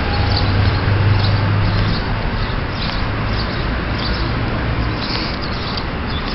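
Town street ambience: a steady wash of traffic noise with a low engine hum that eases off after a couple of seconds, and scattered faint high chirps.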